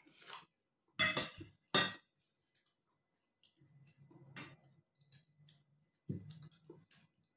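Cutlery clinking against dishes during a meal, with two loud clinks about a second in and another just before two seconds, then fainter clatter.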